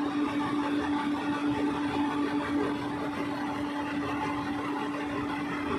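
Excavator's diesel engine running steadily, with one constant hum and no change in pitch.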